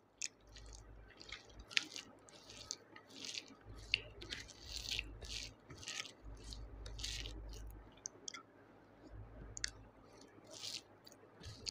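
Wet chewing and squishing of snail curry and rice, picked up close, with a few faint sharp clicks.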